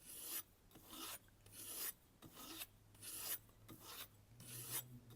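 Knife edge stroked by hand along a kangaroo-tail leather strop wrapped on a wooden block: a faint scraping rasp repeating about twice a second. The strokes are light, finishing strokes, and the rasp comes from the bumps and ridges of the leather.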